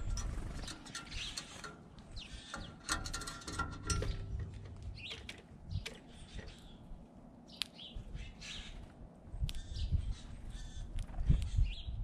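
Small birds at a bird feeder chirping in short, repeated calls, with scattered sharp clicks and irregular low thuds.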